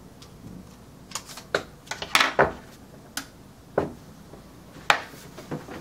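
Scissors snipping the film leader of a 35mm film cassette, among a string of sharp clicks and knocks as the cassette and scissors are handled. The loudest clicks come about two seconds in.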